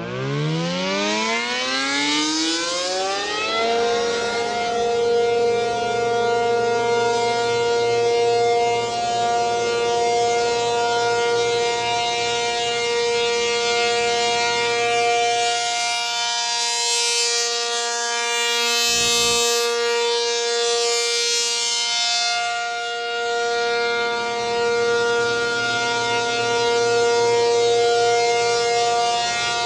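American Signal T-135AC dual-tone siren winding up, its pitch rising over the first few seconds, then holding a steady two-note chord: the Alert signal of a monthly test. The loudness rises and falls slightly as it sounds.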